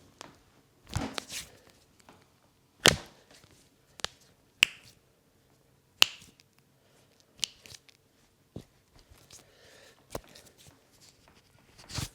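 Sharp, separate smacks of a massage on the head and body, about eight in an irregular pattern one to two seconds apart, the loudest a few seconds in, with a duller thud about a second in and soft rubbing and rustling between.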